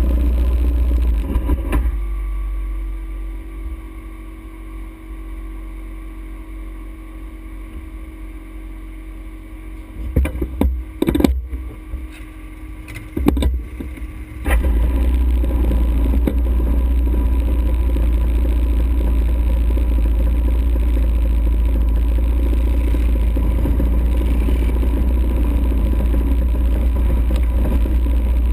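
ATV engine running under a heavy low rumble. About two seconds in it drops to a quieter stretch where the engine idles steadily, with a few knocks around ten and thirteen seconds in. Then the loud running and rumble return at about fourteen seconds.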